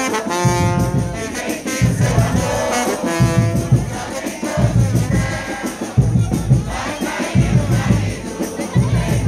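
Frevo brass orchestra playing: trombones and trumpets holding chords over a steady, heavy low drum beat.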